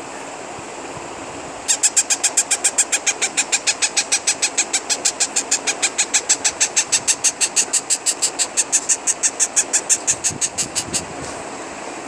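Parrot hatchling peeping in a fast, even series of short high chirps, about five or six a second, starting a couple of seconds in and stopping about a second before the end; the rhythmic begging call of a chick whose beak is being touched. A steady hiss lies underneath.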